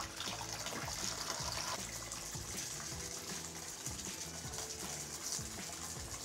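Hot water from a bathtub spout pouring steadily into a drinking glass held under the stream, splashing into the glass.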